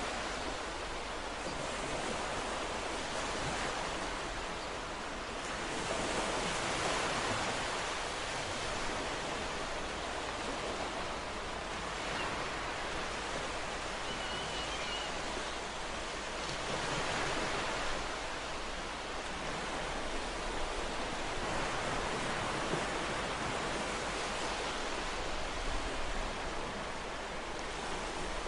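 Ocean waves breaking and washing in as a continuous rush of surf, swelling louder about every five seconds as each wave comes in.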